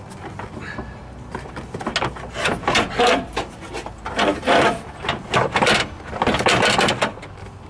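Plastic on plastic: a new radiator's ribbed end tank scraping and rubbing against the plastic fan shroud as the radiator is worked down into place, in a string of short irregular scrapes that come thicker from about two seconds in.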